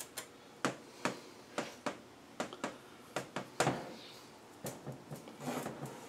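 A dozen or so irregular light clicks and knocks as a differential's crown wheel and carrier are turned and handled on a steel workbench; the loudest knock comes a little past halfway.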